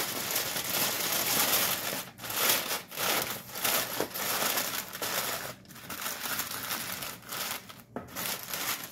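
Aluminium foil crinkling and crumpling as hands fold and crimp it closed around a rack of ribs on a baking sheet, in irregular bursts with a few short pauses.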